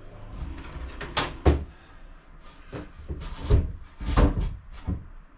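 A string of irregular knocks and thumps, hard objects bumped and set down while working at the benchtop; no power tool is running.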